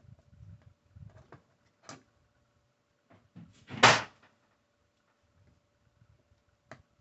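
Plastic building bricks being handled and pressed together on a table, with a few light clicks and one much louder, longer burst of noise about four seconds in.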